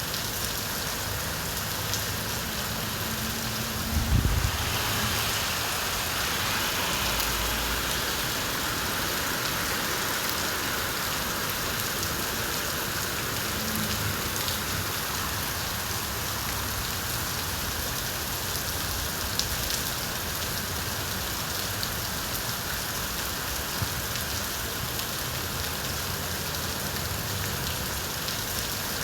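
Steady rain falling on surfaces, an even hiss with occasional distinct drop ticks. A brief low thump stands out about four seconds in.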